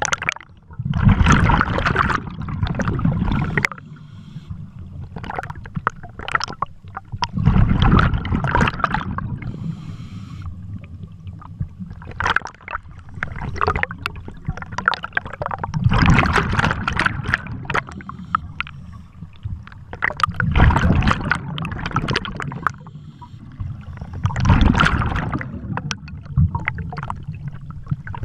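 Scuba diver breathing through a regulator underwater: loud gurgling bursts of exhaled bubbles about every four seconds, with quieter inhalation between.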